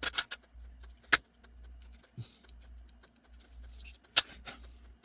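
Small metal hand tools clinking and tapping against one another and the work surface as they are handled. There are a handful of sharp clicks, the loudest about a second in and another about four seconds in.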